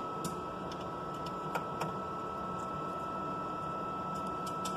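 Steady equipment hum with a thin high whine, and a few faint light clicks as a 1.5 mm hex screwdriver tightens a small screw on the metal microscope stage chamber.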